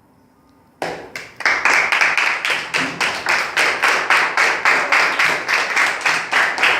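Applause: hands clapping quickly and fairly evenly, about five claps a second. It starts about a second in and is louder from about a second and a half.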